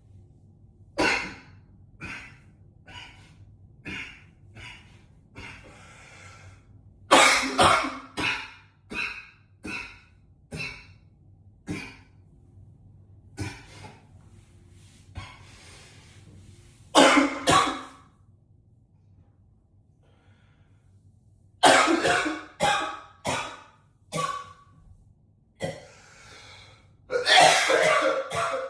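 A man coughing in fits in a small, echoing bathroom: single coughs about a second apart, then several hard, rapid runs of coughs with breaths and pauses of a few seconds between them.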